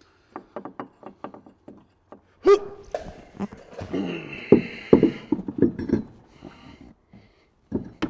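A 37-inch spare tire being lifted and set onto a steel rear tire carrier: light clicks of small hardware at first, then a loud thud about two and a half seconds in, followed by knocking and rubber scraping as the tire is worked onto the mount, and one more sharp knock near the end.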